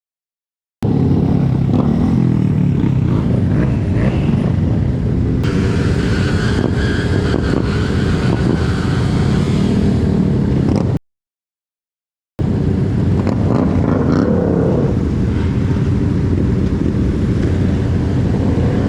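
A vehicle engine running under road and wind noise, its pitch rising and falling with the throttle. The sound cuts out completely for about a second and a half partway through, then resumes.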